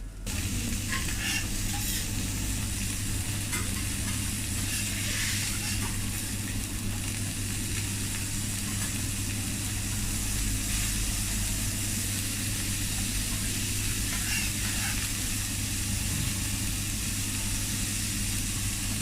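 Food sizzling on a teppanyaki iron griddle, a steady hiss over a low steady hum, with a few brief scrapes of a spatula on the hot plate.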